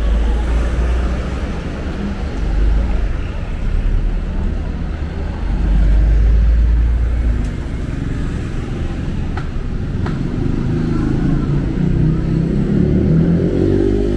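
Street traffic: passing cars with a steady low rumble. Near the end a motor vehicle's engine comes close and grows louder.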